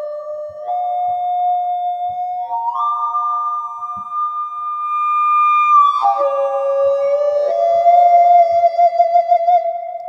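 Feedback organ: talk box feedback shaped through a melodica, sounding sustained whistle-like tones that jump between held pitches, with a wavering vibrato in the last couple of seconds. Faint clicks sound now and then underneath.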